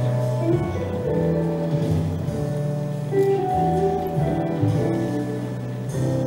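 Instrumental music: held chords over a bass line that steps to a new note about once a second.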